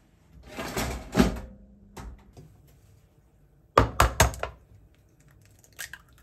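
A toaster oven door swings shut with a clunk about a second in. Around four seconds in an egg gets a few quick sharp taps against the rim of a ceramic bowl, and its shell cracks open near the end.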